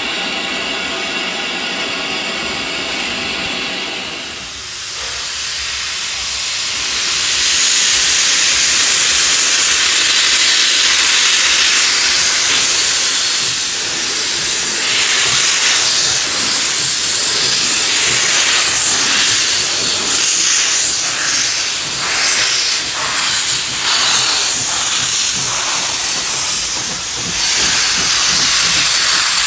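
Doubleheaded NSW steam locomotives 2705 and 3016 drawing a passenger train past, with a loud, steady hiss of steam venting at the front engine's cylinders. Short beats break through the hiss from the middle of the stretch on. It opens with a few seconds of a steadier humming sound before the hiss comes in.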